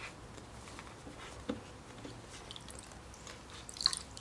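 Quiet handling noises as shorts are pulled off a silicone doll in a plastic baby bath: faint cloth rustling with scattered light clicks, one about a second and a half in and a short cluster of sharper clicks near the end.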